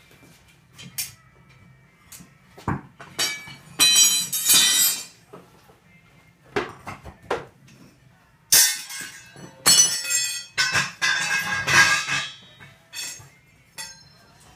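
Irregular metal clanking and scraping from heavy steel being handled, with a few sharp clanks and two longer rattling, scraping stretches, about four seconds in and from about eight and a half seconds to twelve seconds.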